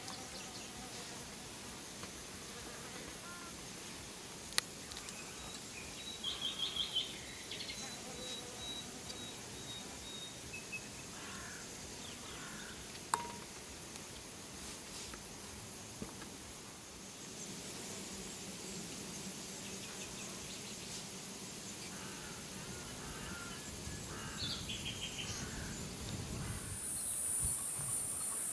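Outdoor ambience of insects with a steady high-pitched hiss, broken by a few short bird chirps and a couple of sharp clicks.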